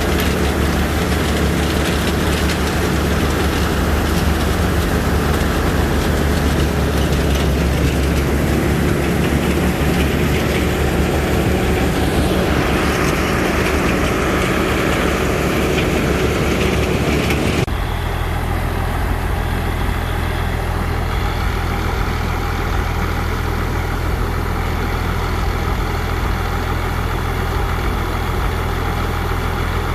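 Heavy farm machine engine running steadily in a rice paddy. A bit over halfway through the sound changes abruptly: the hiss and clatter fall away, leaving a steadier, lower engine hum.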